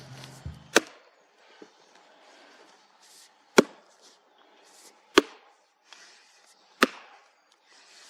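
A log being split by hand: four sharp, heavy strikes on the wood, about a second and a half apart, as the log starts to crack along its length.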